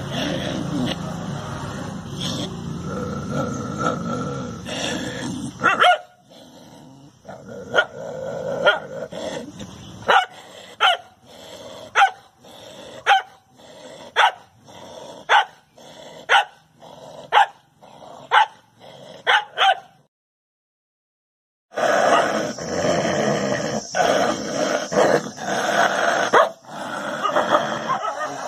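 Dogs barking at their own reflections in a mirror, taking them for another dog: a run of single sharp barks about one a second, then, after a short break near two-thirds of the way through, denser barking.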